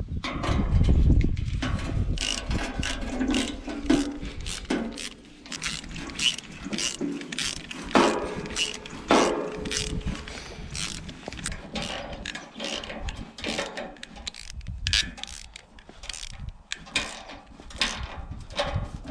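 Hand socket ratchet wrench clicking in repeated runs of quick strokes with short pauses, driving concrete screws that anchor a steel solar-panel mount to a masonry block.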